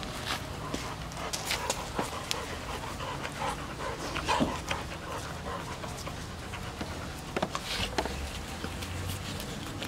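Two dogs, a grey Cane Corso and a black dog, panting as they play-wrestle, with scattered short clicks and scuffling sounds from their rough play.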